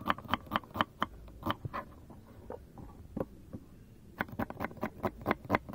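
Kitchen knife slicing an onion on a wooden cutting board: a quick, uneven run of light taps as the blade meets the board. The taps thin out about two seconds in and pick up again about four seconds in.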